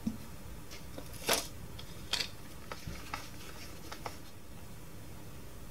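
Irregular plastic clicks and knocks from a toy's battery compartment being handled as batteries are fitted, about six in the first four seconds, one louder knock after about a second.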